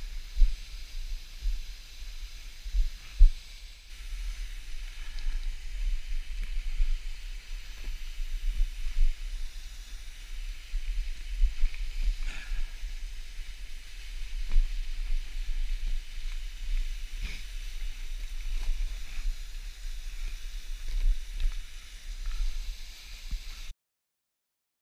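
Wind rumbling and buffeting on a head-mounted action-camera microphone, with scattered crunching footsteps on snow and ice and a steady hiss. It cuts off abruptly about a second before the end.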